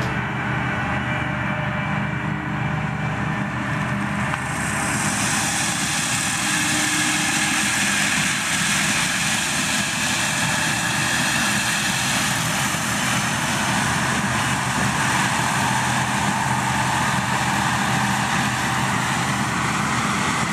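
Heavy diesel farm machinery running steadily: a constant engine note under a rushing hiss, and the hiss grows fuller about four seconds in.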